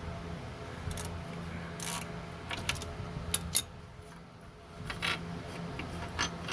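Metal bolt hardware and hand tools clinking and knocking, in about eight sharp, irregular clicks, over a steady low hum.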